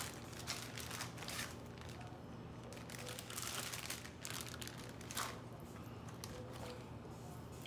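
Thin plastic zipper storage bag crinkling in several short bursts as a bell pepper half is pushed into it and the bag is handled.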